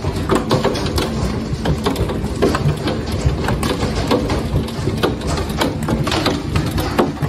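Large hailstones, up to tennis-ball size, hammering the house, heard from inside behind a window: a dense, unbroken clatter of hard, irregular impacts over a low rumble.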